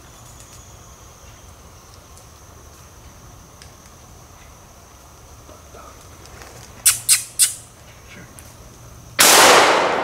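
A single shotgun shot near the end, a sudden loud blast that echoes and fades slowly through the woods. About two seconds before it come three quick, sharp, hissy sounds close together.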